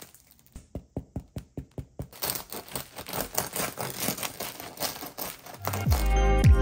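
Crisp crust of a freshly baked sourdough loaf crackling as hands squeeze it. It starts as a run of sharp separate crackles and builds after about two seconds into dense, continuous crackling. Music comes back near the end.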